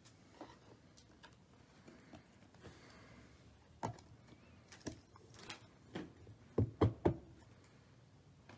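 Hands handling a trading card in a soft plastic sleeve and sliding it into a rigid plastic toploader: scattered light plastic clicks and rustles, then three quick knocks close together near the end, the loudest sounds.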